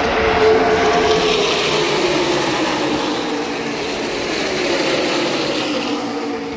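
A pack of NASCAR Cup stock cars' V8 engines running at speed as they pass, the engine pitch slowly falling as the cars go by.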